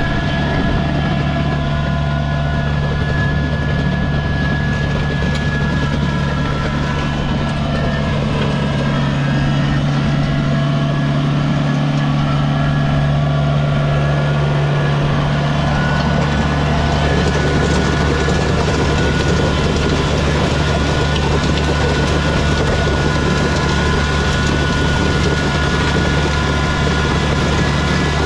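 Kubota BX23S compact tractor's three-cylinder diesel running steadily under load as it pulls a land plane through gravel. In the second half the gravel scraping and grinding along the plane's blades grows louder.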